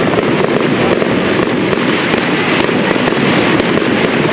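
Fireworks going off in a dense, unbroken stream of rapid pops and bangs, with no gaps.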